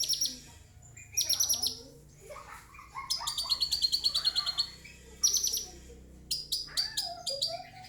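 Lovebird singing in bursts of fast, high-pitched chirping trills, the longest lasting about two seconds near the middle, with quieter lower gliding whistled notes between the bursts. The song carries 'isian', phrases learned from master recordings of other birds.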